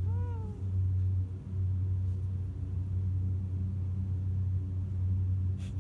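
A black kitten gives one short meow at the very start, rising and falling in pitch, over a steady low hum; a brief click comes near the end.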